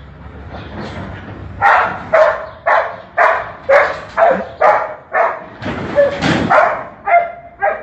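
A dog barking over and over, about two barks a second, starting a little after a second in.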